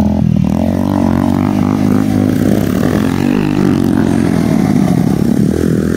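Motorcycle engine revving hard, its pitch rising and falling, as the bike drifts and spins on loose sand and gravel.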